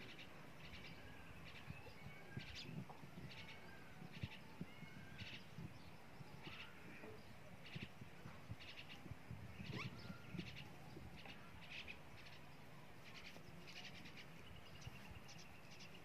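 Faint chirping of small birds: many short calls scattered throughout, over a low rustling.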